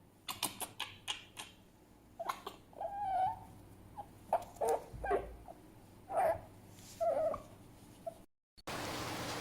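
Fennec fox giving a string of short, sharp yips and whimpering calls, with one longer whine about three seconds in.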